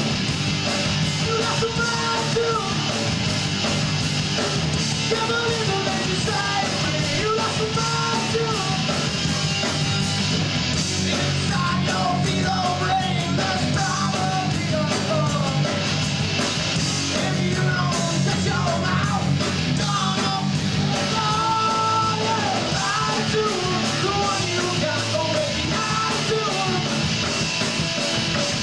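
Live rock band playing loud amplified music: electric guitars, bass and drums, steady throughout.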